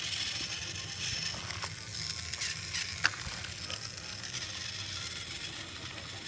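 Battery-powered TOMY TrackMaster Percy toy train running on plastic track, a steady whirring hiss from its small motor and wheels, with a few sharp clicks, the loudest about three seconds in.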